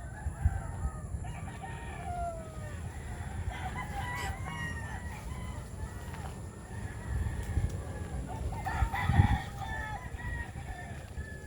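Chickens calling over one another: roosters crowing and birds clucking, over a steady low rumble. The calls are loudest about nine seconds in.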